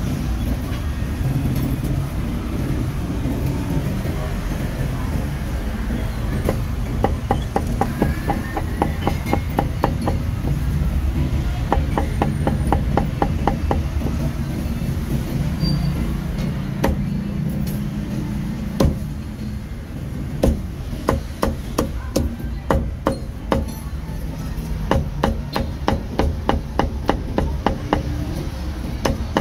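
Cleaver chopping roast meat on a wooden chopping block: quick runs of sharp knocks, about three to four a second, with short pauses between runs, over a steady low rumble of street noise.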